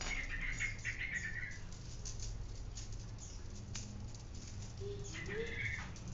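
Steel bicycle spokes clicking and rattling as they are pulled out of a hub flange and tossed onto a pile of spokes, with scattered light metallic ticks and two brief jangling patches, one at the start and one about five seconds in.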